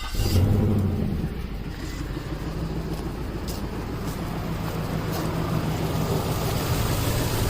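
2005 Nissan Armada's 5.6-litre V8 catching on start, flaring briefly in the first second, then settling into a steady idle. It is running with the newly fitted cylinder 8 ignition coil left unplugged, so that cylinder is dead.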